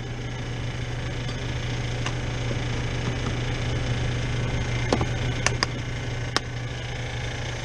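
Refrigeration condensing unit running with a steady low hum, with several sharp clicks and taps of hand tools against metal, most of them about five to six and a half seconds in.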